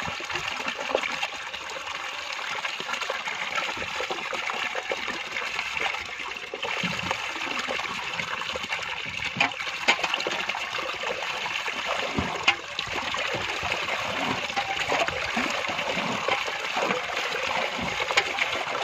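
Steady rush of water running through a mesh-net fish trap, with a few sharp splashes, one about halfway through and another later on.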